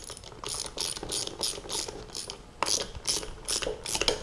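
Ratchet of a small inch-pound torque wrench clicking in a quick run of strokes, about three clicks a second, as the lock-retainer screws on a planetary gear carrier are tightened to 30 to 50 inch-pounds.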